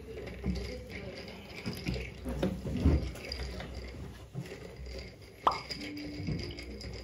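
Close-up eating sounds: biting and chewing soft, chewy grilled rice dumplings (dango) off a skewer, with small wet mouth sounds, and a single sharp click about five and a half seconds in.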